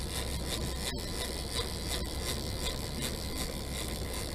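Steady rumble and hiss aboard a sport-fishing boat at sea, boat noise with wind on the microphone.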